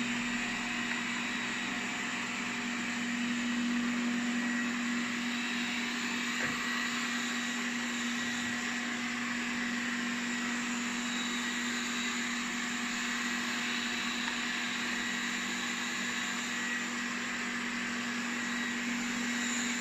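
Roborock S4 robot vacuum running: a steady whir of its suction motor with an even, constant hum underneath.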